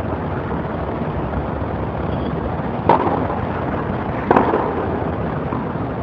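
Tennis ball struck by racket twice, about a second and a half apart, two sharp pocks during a rally, over a steady rushing background noise.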